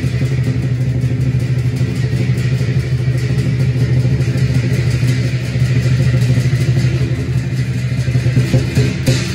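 Chinese lion dance drum playing a fast, continuous roll, the cymbals held back, for the lions' quiet 'whispering' passage. Cymbal crashes come back in near the end.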